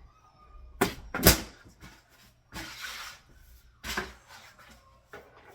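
A few sharp knocks and bumps, the loudest about a second in, with a short scraping rush in the middle: objects being handled and set down.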